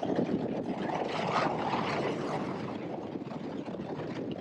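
Bass boat with a Mercury 300R four-stroke outboard running at high speed: a steady rush of wind, water and motor on an onboard microphone. It swells louder about a second in and eases after.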